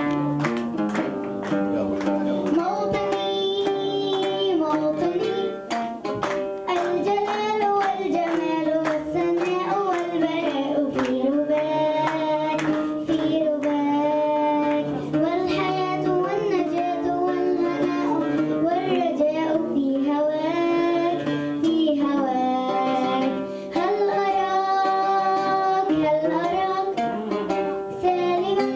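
A young girl singing a melody into a handheld microphone, with held notes and vibrato, over instrumental backing music.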